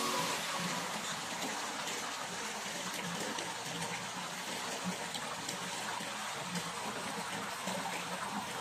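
Steady splashing of water pouring from a spout into a swimming pool, with small splashes and lapping on the pool water.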